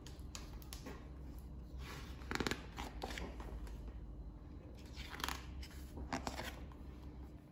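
Stiff pages of a hardback picture book being turned by hand: several faint paper rustles and flaps, the loudest about two and a half seconds in, over a low steady hum.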